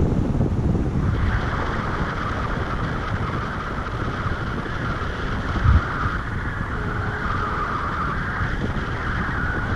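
Airflow buffeting the camera microphone in paragliding flight: a steady rushing wind noise, with a higher hiss joining about a second in and one brief low gust thump about halfway through.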